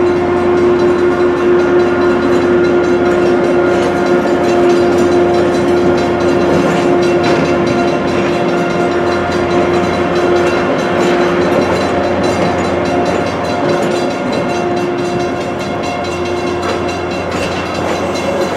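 Bilevel gallery passenger cars rolling past close by, their wheels and trucks rumbling on the rails. A steady held tone sounds over the rumble and fades out near the end.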